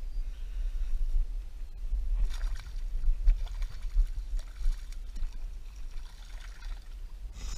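Wind rumbling on the microphone, with faint scattered rustles and ticks from handling the rod and line.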